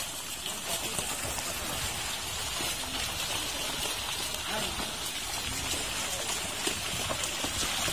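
Milkfish crowded in a drawn-in net thrashing at the water's surface: a steady pattering of many small splashes, like rain on water.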